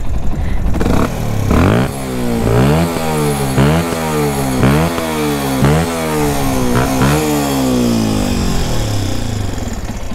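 Yamaha WR125X's single-cylinder 125 cc four-stroke engine revved on the stand in about six quick throttle blips, each one jumping up in pitch and sliding back down, then dropping back toward idle.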